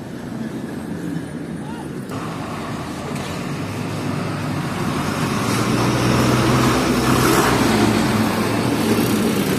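Truck engine running with road noise; it grows louder about halfway through and stays loud.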